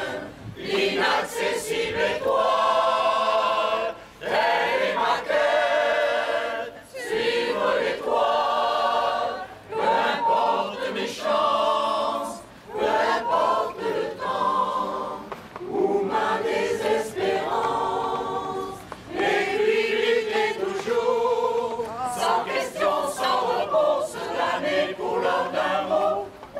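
Mixed choir of men and women singing a French song a cappella, in phrases broken by short pauses for breath.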